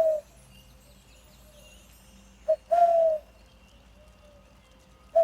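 A bird's low hooting call repeated about every two and a half seconds. Each call is a very short note followed by a longer, slightly falling note.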